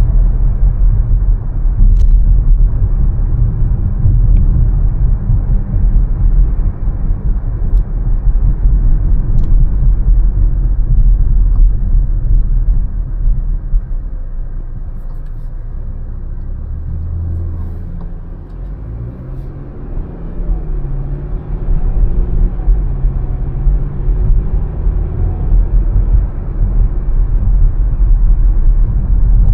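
A car driving on city streets: a steady low rumble of road and engine noise that eases off for a few seconds in the middle, with the engine tone rising and falling, then builds back up.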